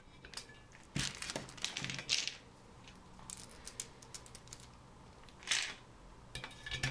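Small metal screws being driven into a CPU heatsink's hold-down plate with a screwdriver, with handling of the metal parts: a few short clusters of light clicks and scrapes about a second in, around two seconds and near the end, quiet in between.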